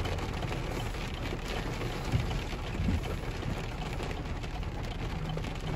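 Rain hitting a vehicle's windshield and roof, heard from inside the cabin as a steady hiss over a low, steady rumble.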